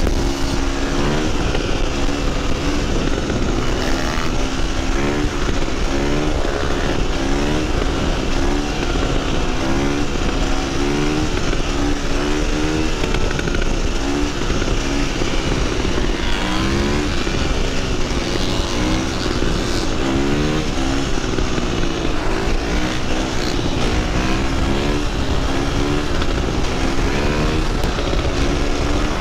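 Orange KTM dirt bike engine revved hard and let off again and again, its pitch climbing in quick runs and dropping back as the throttle is worked to hold a wheelie at speed.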